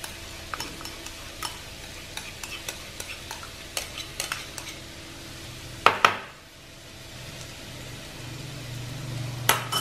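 Butter and aromatics sizzling in a nonstick wok as mashed salted egg yolk is scraped in from a bowl with a spoon and stirred with chopsticks. Small clicks of utensils run throughout, with two sharp knocks about six seconds in and another near the end.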